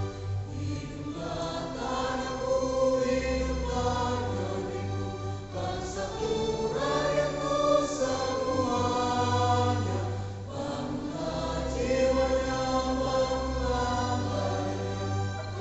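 Choir singing in sustained chords, phrase after phrase, with short pauses between phrases about six and ten seconds in.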